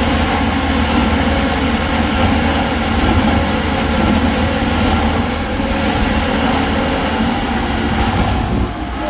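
Concrete mixer running steadily, its engine giving a continuous low drone, with a slight drop in level near the end.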